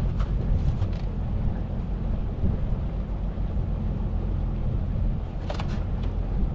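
Steady low rumble aboard a small boat on the water, with a few short knocks about a second in and again near the end.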